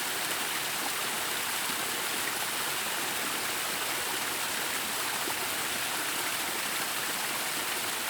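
Small garden waterfall: a steady rush and splash of water falling into a pool.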